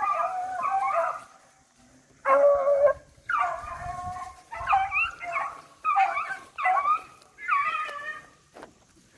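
Beagles baying on a rabbit's track: a string of about seven drawn-out bawls, each under a second, with short gaps between them. This is hounds giving tongue as they run the scent line.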